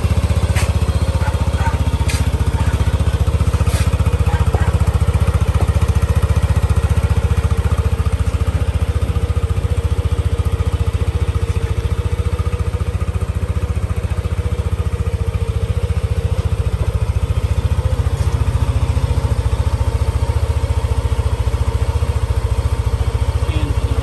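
First-generation Yamaha NMAX's 155 cc single-cylinder engine idling steadily through its stock muffler.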